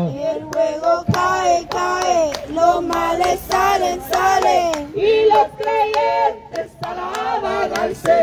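Worship singing in high voices, with hands clapping along throughout.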